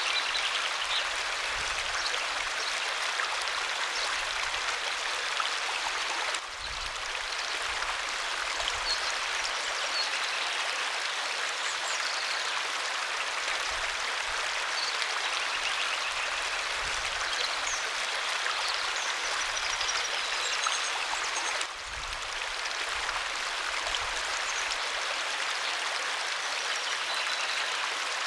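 Waterfall water rushing in a steady, even hiss, dipping briefly twice, about six and twenty-two seconds in.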